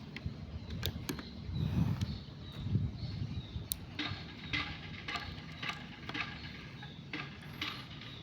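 Wind rumbling on the microphone, with a few light clicks, and birds chirping in the second half.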